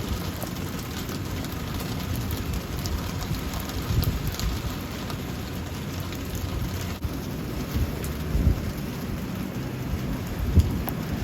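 Steady rain falling, with low rumbles of thunder swelling a few times.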